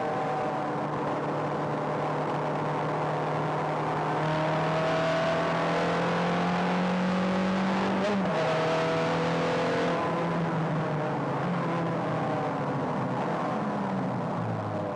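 Ferrari sports car engine running under way, heard inside the cabin over road and wind noise. Its pitch climbs slowly, drops sharply about eight seconds in, then eases lower toward the end.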